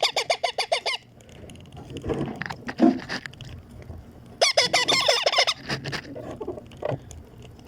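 Baby Indian ringneck parakeet giving harsh, rapidly repeated begging calls while being hand-fed, in two bursts of about a second each: one at the start and one about halfway through.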